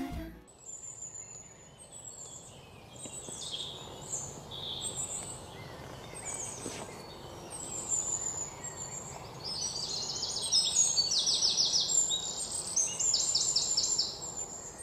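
Several wild birds singing and calling over a faint steady background hiss. From about ten seconds in, fast trilled phrases of rapidly repeated notes become the loudest sound.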